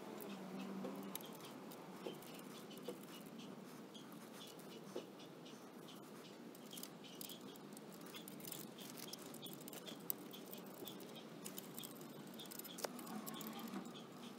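Faint, irregular small metal clicks and ticks of a steel mounting bracket and its fasteners being handled and tightened on a motorcycle frame, with a couple of sharper knocks about two-thirds of the way through and again near the end.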